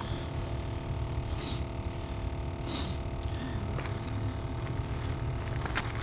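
A motor running steadily at a constant pitch, with a low rumble and a couple of brief faint rustles.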